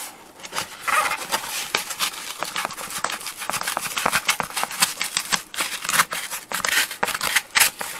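Utility knife blade sawing and scraping through a stiff black engine-bay side cover in rapid, irregular strokes, starting about a second in. The blade is barely cutting; the cover is surprisingly hard.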